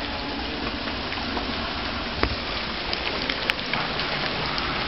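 Steady rain falling: an even hiss, with a few sharp ticks scattered through it.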